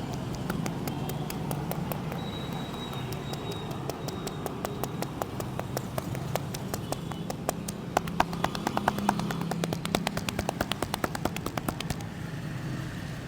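Rapid sharp taps and slaps of a barber's hands on the head during a head massage, a few a second at first, then quickening into a fast patter from about eight seconds in until near the end. Steady street traffic noise runs underneath.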